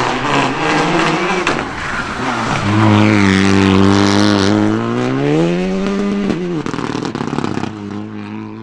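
Renault Clio rally car's engine pulling out of a corner: a strong steady note that climbs in pitch, then cuts off sharply about six seconds in as the driver lifts, leaving a lower, quieter note near the end.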